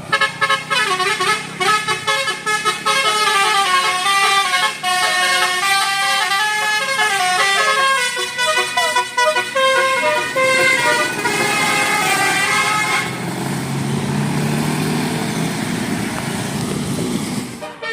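Bus telolet horn, a Basuri multi-tone electric horn, playing a quick stepping melody of bright notes. About thirteen seconds in the tune stops and the bus's engine is heard going by until the sound cuts off suddenly.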